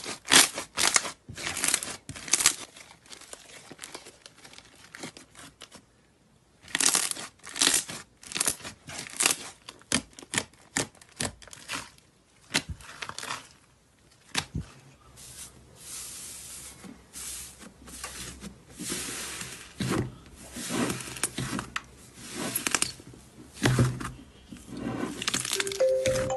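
Slime being squeezed, pressed and stretched by hand: runs of sticky crackling and popping, with short pauses between. A few musical notes come in near the end.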